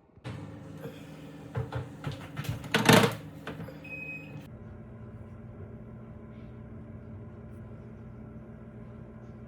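A small electric appliance motor humming steadily, with clattering and knocks over its first few seconds, the loudest about three seconds in, and a short high beep about four seconds in.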